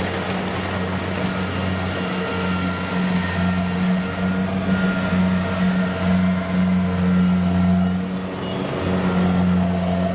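Kubota DC70 combine harvester's diesel engine running steadily as the machine drives along on its tracks, a low even hum that wavers slightly in pitch.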